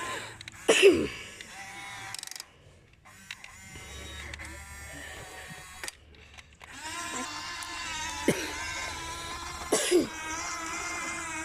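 The small electric motors of a toy remote-control excavator whine in bursts, with a gap in the middle. Two short, louder sounds fall in pitch, one about a second in and one near the end. A sharp click comes shortly before the second.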